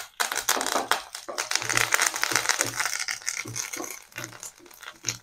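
Curry leaves and green chillies crackling and sizzling in hot oil in a nonstick kadai, the tempering of dals and dried red chillies stirred with a wooden spatula. Dense, fast crackling that thins out toward the end.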